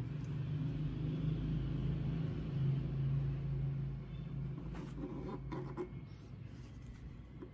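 Low, steady engine hum of a motor vehicle running close by, fading away about six seconds in. Soft cloth rustling and a few light clicks come from a linen drawstring bag being handled near the end of the hum.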